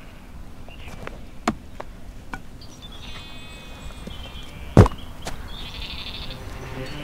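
Sheep bleating, a few faint calls. There are scattered light clicks and one sharp crack almost five seconds in, the loudest sound.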